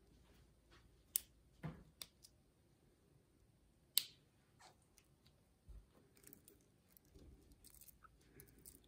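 Stainless steel link watch bracelet being fitted to a smartwatch's lugs by hand: a few sharp metallic clicks in the first half, then faint handling and rattling of the links.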